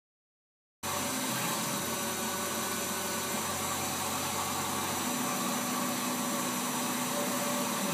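Tormach PCNC 770 CNC mill running a 1/16-inch end mill through a light finishing cut in mild steel. The steady whir of the spindle and machine starts abruptly after a moment of silence, and a low hum beneath it changes about five seconds in.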